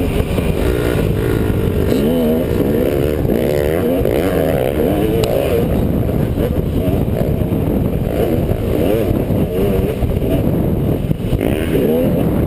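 Motocross dirt bike engine revving hard and dropping back again and again as it is ridden around a dirt track, heard from a helmet-mounted camera.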